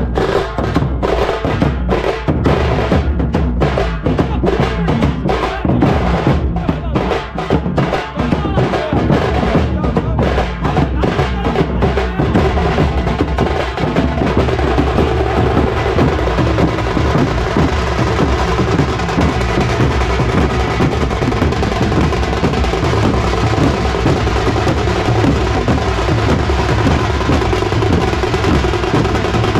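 A tasha drum troupe plays: many stick-beaten tasha kettle drums over large barrel bass drums in a fast, loud rhythm. For about the first twelve seconds the strokes come in separate punches with short breaks, then the drumming settles into a dense, continuous roll.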